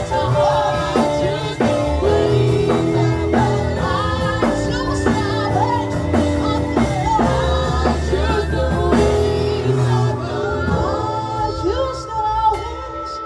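Worship song sung with a band: singing over bass and a drum kit keeping a steady beat. About ten seconds in, the drums drop out and the music softens.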